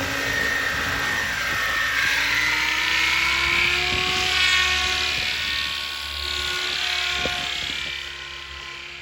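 Electric RC helicopter with an Xnova brushless motor in fast flight. The motor and gear whine runs over rushing rotor noise, its pitch gliding slowly. It is loudest about four and a half seconds in and fades over the last second or so.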